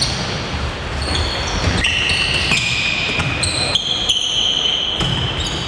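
Futsal players' shoes squeaking on the indoor court floor in a string of short, high squeaks, with ball knocks and the echoing rumble of the sports hall.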